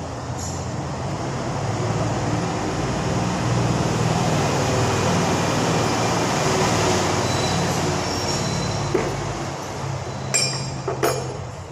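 A steady mechanical rumble with a hissing edge that swells over the first few seconds and eases off near the end. A few sharp metallic clinks come near the end as the starter motor's field housing is lifted off the armature and set down.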